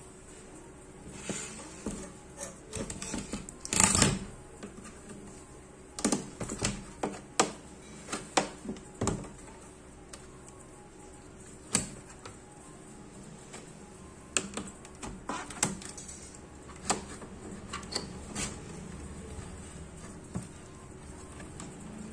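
Irregular clicks, snaps and light knocks of a flat tool prying at the metal frame and panel of a flat-panel monitor being dismantled, with a louder cluster of knocks about four seconds in. A faint steady hum runs underneath.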